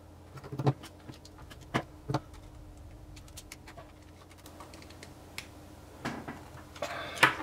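Small hand tools clicking against a metal coax connector as it is tightened onto a coaxial cable with two pairs of pliers: a few sharp clicks about half a second and two seconds in, lighter ticks between, and more handling noise near the end.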